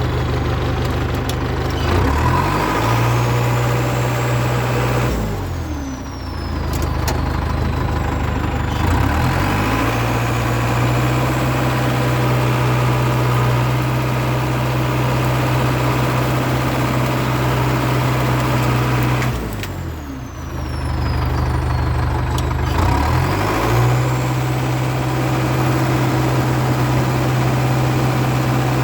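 International Harvester TD8E crawler bulldozer's diesel engine running steadily, its pitch dropping and climbing back several times as it is throttled or loaded down and recovers.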